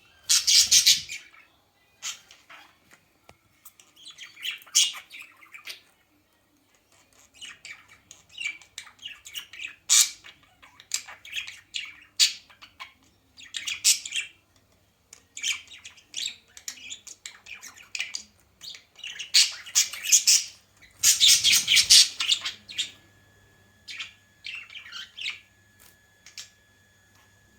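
A bird squawking and chirping in repeated short bursts, loudest near the start and again about three quarters of the way through.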